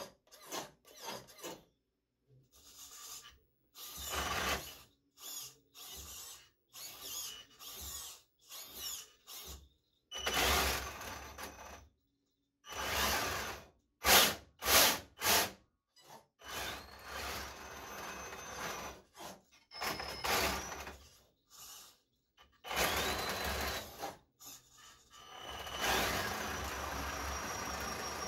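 RC snowmobile's servos and brushless drive motor running in short stop-start bursts of mechanical whirring, some carrying a high whine, as the split track suspension tilts and the track turns.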